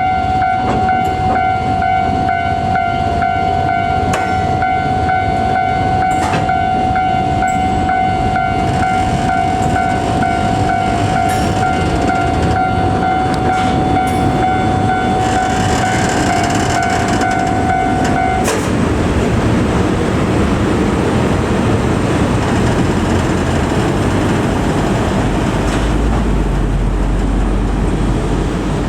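Level crossing warning bell ringing with a steady electronic tone while a train rolls over the crossing with wheel and rail noise. The bell cuts off suddenly about two-thirds of the way through, and the train's rolling noise carries on.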